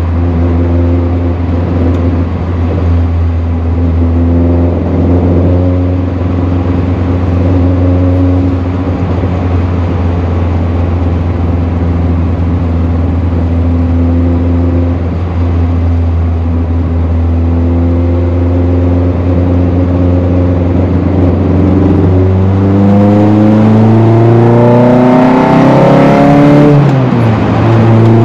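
VW Golf Mk1's 1.8 16-valve four-cylinder on twin Weber carburettors with a Supersprint exhaust, heard inside the cabin: it holds steady revs for about twenty seconds, then revs up under acceleration. Near the end the pitch dips briefly at a gear change before climbing again.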